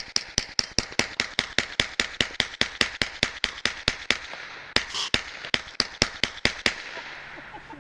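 Suppressed firearm fired rapidly and steadily, about five shots a second, stopping shortly before the end.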